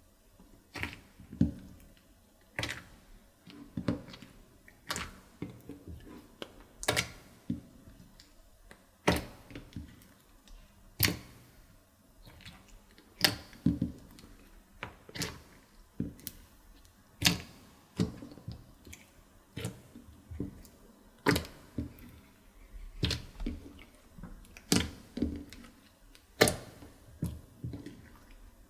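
Slime being pressed and worked by hand, giving a string of sharp sticky clicks and pops, about one or two a second and uneven in loudness.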